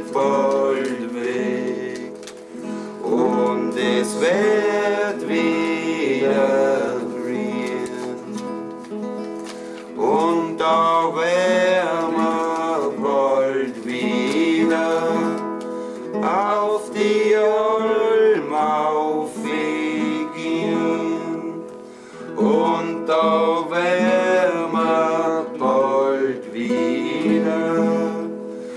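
Classical guitar strummed as accompaniment while men sing a German folk song. The singing comes in phrases with short breaks between them.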